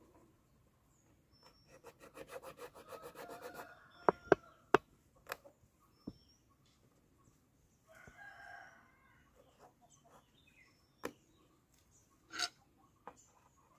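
Stiff, dry areca palm leaf sheath crackling and snapping sharply a few times as it is bent and pressed into a cap shape. The loudest snaps come around four to five seconds in, with another near the end. Chickens cluck in the background.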